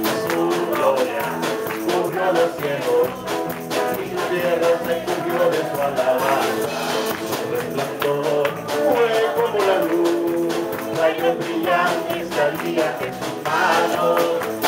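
Live Spanish-language Christian praise music: a man sings the lead into a microphone over a small band with electric bass and keyboard, with a steady beat.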